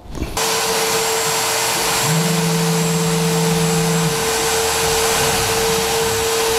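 Compact router spindle on a homemade CNC router running through a cut, with a shop vacuum drawing dust from the cut: a loud steady noise with a steady tone. A lower hum comes in about two seconds in and stops about two seconds later.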